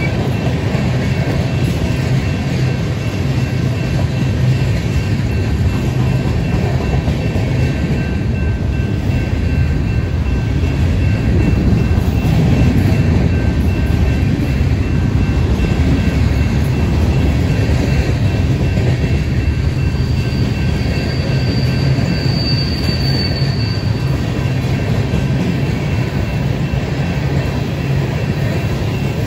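Freight train passing with a steady, heavy rumble of locomotives and rolling cars. About twenty seconds in there is a brief high wheel squeal.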